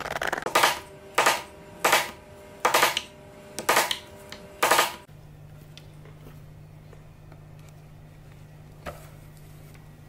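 Stiff new leather phone case creaking and squeaking as it is flexed and squeezed by hand, six short bursts in the first five seconds. After that, only a low steady hum.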